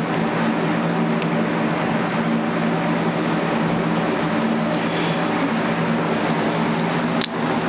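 A steady droning hum made of several held low tones under an even hiss, with a short sharp click about seven seconds in.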